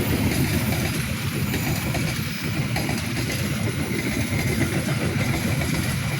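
Diesel-hauled passenger train running by close at hand: a steady, loud rumble of locomotive and wheels on the rails.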